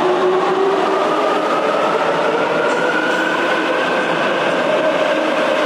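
Shanghai Metro Line 1 01A01-series subway train pulling out of the station past the platform. A steady rumble of wheels runs under a whine that rises slowly in pitch as the train speeds up.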